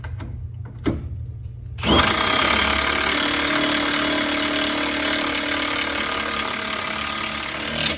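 Cordless impact wrench running on a nut at the rear wheel hub, starting about two seconds in and hammering steadily for about six seconds before cutting off just before the end. A short click comes about a second in.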